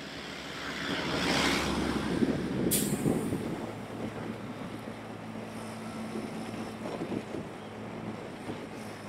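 Motorbike riding through town traffic: engine and road noise with wind on the microphone. A passing vehicle swells up in the first three seconds, with a brief hiss near its peak. After that the engine settles into a steady low hum.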